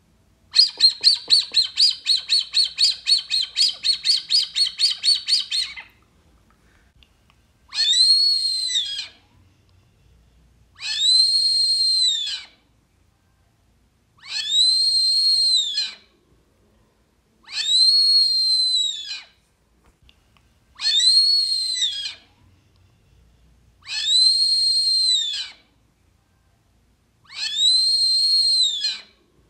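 Wooden Maurilio Coelho call for the Brazilian teal (marreca-ananaí) being blown to draw the ducks in. First comes a rapid trill of about five short high whistles a second for about five seconds, then seven long, high whistles that rise and fall, evenly spaced about three seconds apart.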